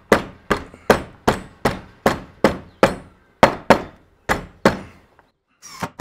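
Hammer tapping repeatedly on the broken bottom section of a wooden garage door to drive it further into the joint. There are about a dozen sharp, evenly spaced blows, roughly three a second, stopping a little before the end, followed by a brief clatter.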